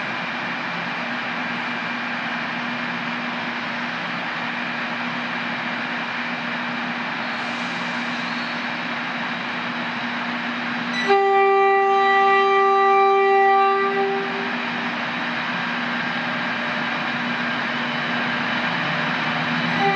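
Tren Maya passenger train at a platform running with a steady mechanical hum, then its horn sounds one long note for about three seconds about halfway through, and again right at the end as it pulls away.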